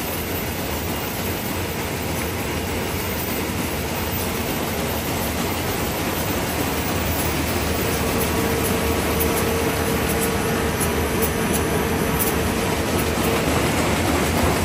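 Oyang high-speed paper bag machine running: a steady mechanical whir and rumble that slowly gets louder. A humming tone runs through it and grows stronger about halfway through, then fades near the end.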